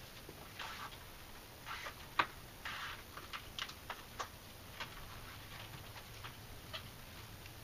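Irregular light clicks and short scratchy rustles of hands handling and pressing a plastic vent visor into place along a car door's window frame, with one sharper click a little over two seconds in.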